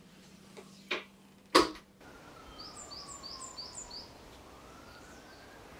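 Two sharp knocks over a low steady hum, the second the loudest, then a sudden change about two seconds in to woodland ambience. There a bird gives a quick run of about six high falling chirps, and a faint siren wails in the distance, falling and then rising.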